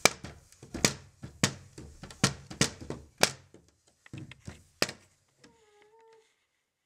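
Gloved hands banging on a window pane, a dozen sharp knocks at about two a second that stop about five seconds in. A short high whimpering whine follows near the end.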